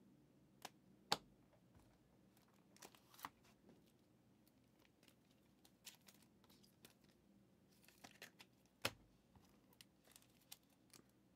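Trading cards being handled: faint, scattered clicks and light rustles of cards and their plastic holders. The sharpest clicks come about a second in and again near nine seconds.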